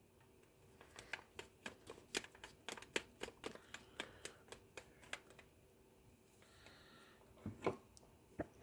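Screwdriver driving Phillips head screws into the front cover of a variable AC transformer: a run of faint, irregular small clicks for a few seconds, then a couple of louder knocks near the end.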